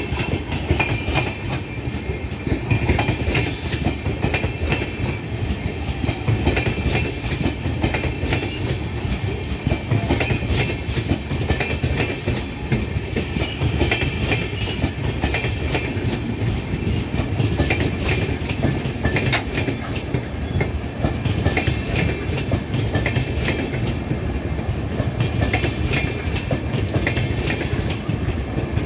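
Passenger coaches of a long express train rolling past, the wheels clicking over rail joints and points in a steady clickety-clack over a continuous rumble. A thin high wheel squeal comes and goes.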